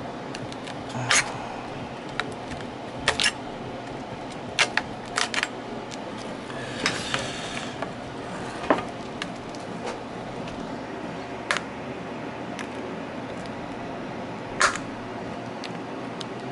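Irregular small clicks and taps of hand tools and plastic parts being handled on a laptop being taken apart, with a brief scrape about seven seconds in, over a low steady hum.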